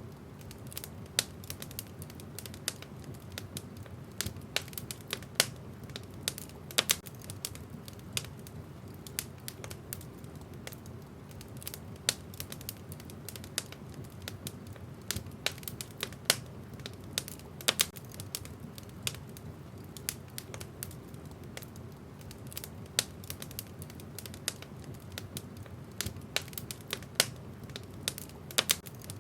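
Wood fire burning in a fireplace: a steady low rumble of flames with frequent sharp, irregular crackles and pops from the burning logs.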